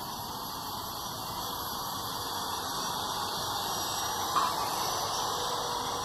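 Steady outdoor street background noise with no clear single source, and one short sharp click about four and a half seconds in.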